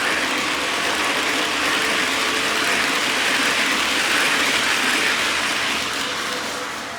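O gauge model passenger train running on the track: a steady whirring clatter of wheels and geared motor, swelling toward the middle and fading near the end as the train passes.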